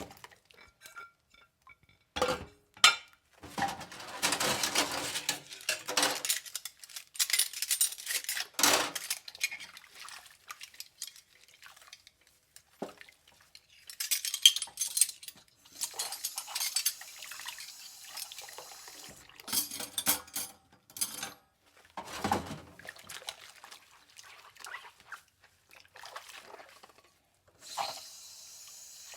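Dishes and cutlery clattering in a sink, with water splashing in irregular bursts.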